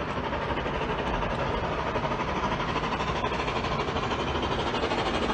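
Steam-hauled train approaching out of sight, its noise growing steadily louder.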